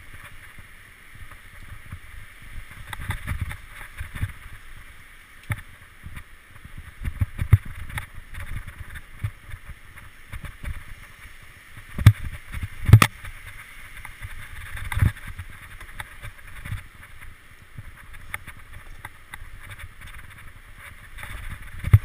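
Mountain bike riding a forest dirt singletrack, heard from a GoPro on the rider: a steady rush of wind and tyre noise with frequent knocks and rattles as the bike goes over bumps, the hardest two sharp knocks about twelve and thirteen seconds in.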